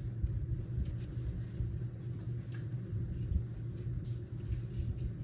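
Ceiling fan with a Litex Ellington motor and cut-down Harbor Breeze blades running on its lowest speed, a steady low rumble and hum.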